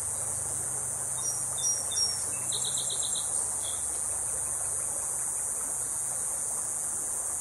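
Steady high-pitched drone of insects in the riverside trees, with a songbird calling briefly about a second in: a few short high notes, then a quick run of about six notes.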